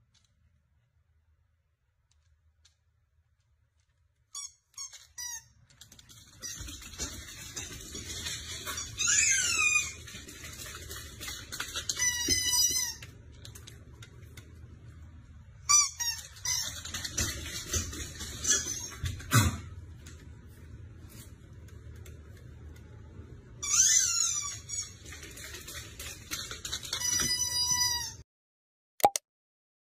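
A husky-type dog vocalizing in several bouts of high-pitched, squeaky yowls and whines that rise and fall in pitch, over a low steady hum. It starts about six seconds in, and the sound cuts off sharply near the end.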